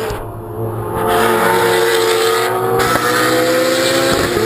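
Two cars driving hard on a race circuit, their engines getting much louder about a second in as they come close and pass, then running on at high revs.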